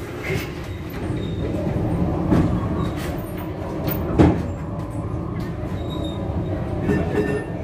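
Nostalgic street tram running on its rails, heard from inside the car: a steady low rumble of wheels on track with clattering knocks, the sharpest about four seconds in.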